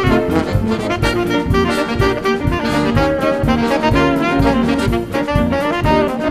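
Lively jazz-style band music with horn lines over a steady drum beat.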